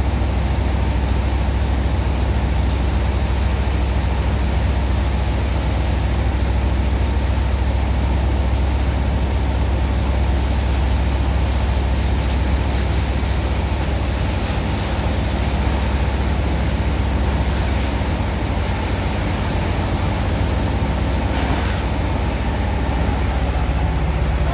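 Sand-unloading water pump's engine running steadily with a deep drone, mixed with the hiss and splash of water jets from hoses breaking up wet sand into slurry.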